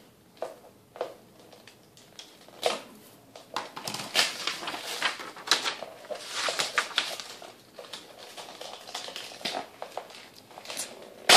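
Gift wrapping paper being torn and crumpled as a present is unwrapped: a run of rustles and rips, ending in one sharp snap.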